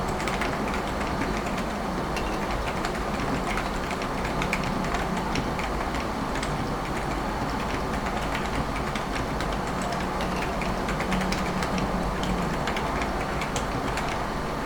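Continuous typing on a silenced Topre-style electrostatic capacitive keyboard, the _bvn Calla TKL with 49 g carrot domes, OEM purple sliders and a stainless steel plate: soft, muffled keystrokes, several a second. They sit over a steady hiss from the camera mic's boosted gain.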